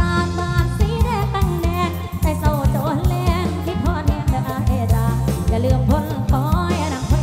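A woman singing a Thai luk thung song with wavering vibrato, backed by a band with a steady bass line and drums.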